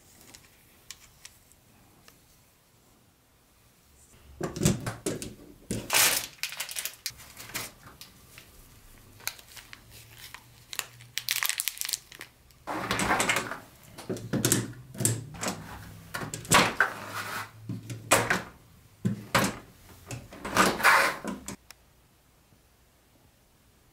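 Plastic packaging crinkling and rustling, mixed with clicks and knocks of the black plastic track sections of a Lionel battery-powered toy train set being handled. It comes in irregular bursts that start about four seconds in and stop a couple of seconds before the end.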